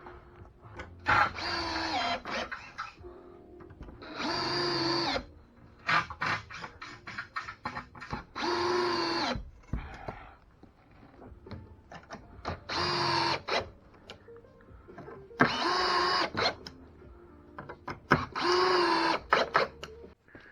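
Power drill driving screws into wooden blocking, in six short runs of about a second each, each a steady whine that spins up at the start. Clicks and knocks from handling come between the runs.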